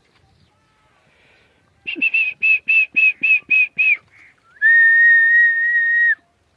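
High whistled notes: a quick run of about eight short notes, about four a second, followed by one long steady whistle held for about a second and a half that cuts off sharply.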